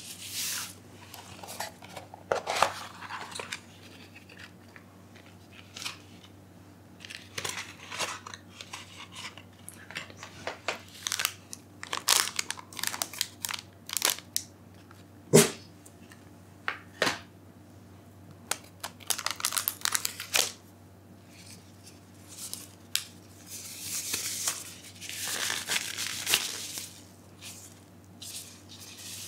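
Crinkling and rustling of packaging handled close to the microphone: a foil chip pouch and thin disposable plastic gloves, with scattered taps and one sharp knock about halfway through. The gloves' crinkling runs longest and loudest near the end.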